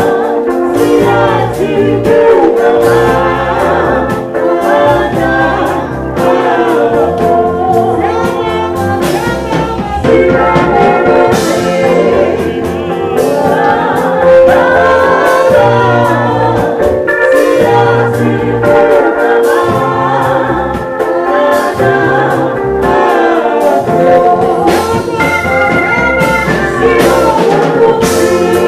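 Live gospel song played through PA speakers: a woman sings lead into a handheld microphone over a band of drum kit and electric bass guitar.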